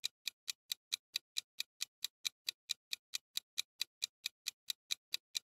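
Countdown-timer sound effect: an even, clock-like tick, about four to five ticks a second, marking the time left to answer.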